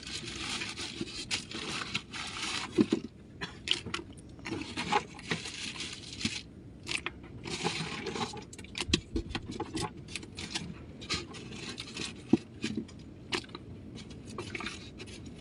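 Wet fish being dropped and shuffled into a plastic bucket: irregular scraping and rustling as they slide over one another, with many small knocks and clicks against the bucket.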